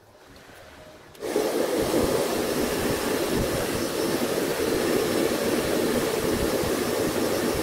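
Hand-held hot-air blower switched on about a second in and running steadily, blowing onto a freshly glued table tennis racket handle to set the glue.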